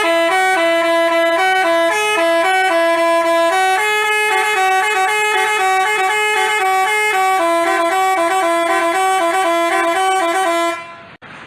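Basuri telolet bus horn, several horn notes sounding together and stepping from pitch to pitch to play a tune, stopping abruptly near the end.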